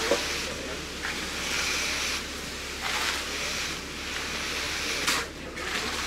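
Repeated scraping strokes of a hand tool dragged across wet concrete: a hissy rasp that starts sharply and lasts about a second each time, coming again every second or two.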